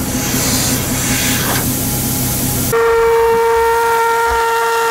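Air hissing out of an off-road tire as the valve is pressed to air it down. About halfway through it changes abruptly to a steady, pitched whistle: air escaping through a brass tire deflator on another wheel's valve stem, making the tire "toot".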